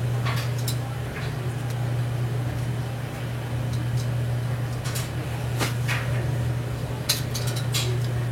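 A steady low hum with scattered sharp light clinks and clicks, a cluster of them near the end.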